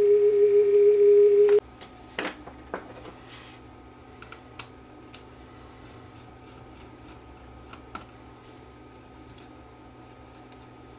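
A single steady test tone played back from a cassette on an MTC portable cassette recorder, its pitch marred by flutter that the owner puts down to a slipping drive belt. The tone cuts off suddenly about one and a half seconds in, followed by a few sharp mechanical clicks and faint ticking.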